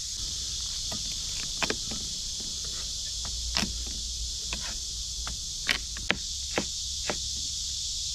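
Ember fire crackling under shark being grilled: irregular sharp pops, a dozen or so, louder ones coming more often in the second half. Underneath runs a steady high hiss and a low rumble.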